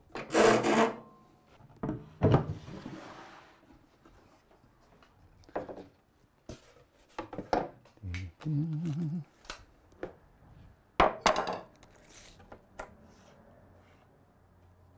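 Plywood boards and a wooden table-saw crosscut sled being handled and set down on the saw: scattered wooden knocks and clacks, with a short scraping rattle about eight and a half seconds in. The saw is not running.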